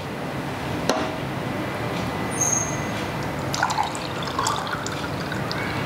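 Fresh orange juice being poured from a food-processor bowl into a tall glass, trickling as the glass fills. A sharp knock about a second in.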